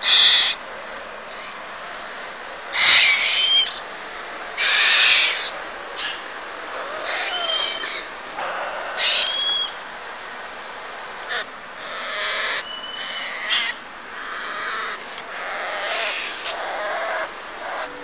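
Parrot nestlings giving raspy, hissing begging calls in repeated bursts of about half a second to a second each, with a few thin whistled notes among them.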